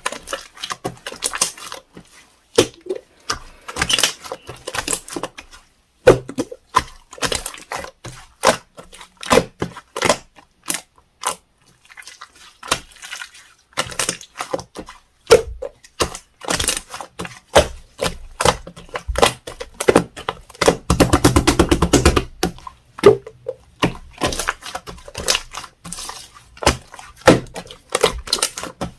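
Orange clear slime being pressed and squished by hand, giving irregular sticky clicks and pops of trapped air. About three quarters of the way through there is a quick run of rapid pops.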